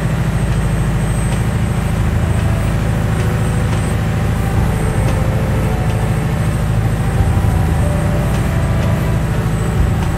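Motor yacht's engine running steadily under way, a low drone heard from inside the wheelhouse, with the rush of water along the hull.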